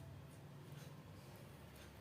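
Near silence: room tone with a faint steady low hum and a few light scratchy ticks.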